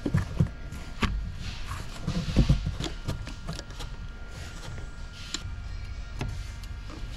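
Handling noise of a rubber coolant hose and its clamp being worked back into place with hands and a tool: irregular clicks and knocks, a cluster of them about two and a half seconds in, over a faint steady hum.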